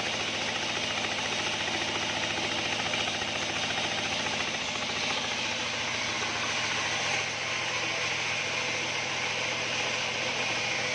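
A locally built 28-inch band sawmill running steadily: a continuous machine drone with a hissing, whirring edge from the moving blade, shifting slightly about seven seconds in.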